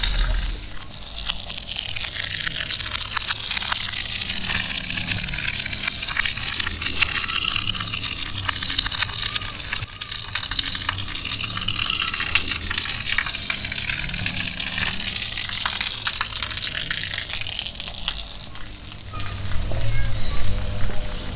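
Water gushing in a steady bright hiss that swells after the first couple of seconds and fades away near the end.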